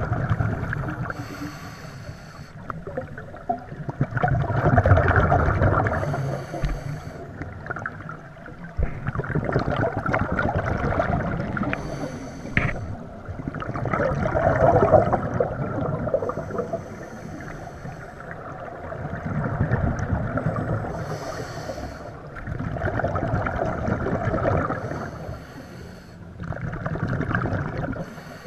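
Underwater scuba breathing through a regulator: a short hiss on each inhale, then a longer rush of exhaled bubbles, repeating about every four to five seconds.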